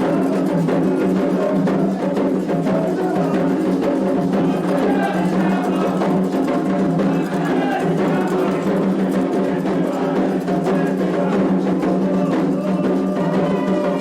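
Candomblé toque for Ossain: atabaque hand drums and a struck bell or wood block playing a fast, steady rhythm, with voices singing over it at times.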